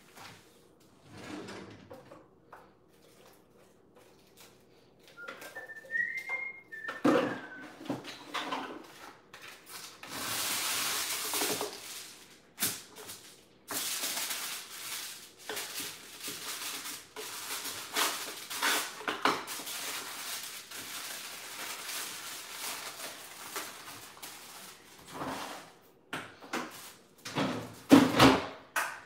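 Kitchen handling sounds: a short whistled note about six seconds in, then a long stretch of rustling and crinkling as kitchen wrap is pulled off the roll and folded around raw bacon, with a few knocks near the end as the refrigerator door is opened.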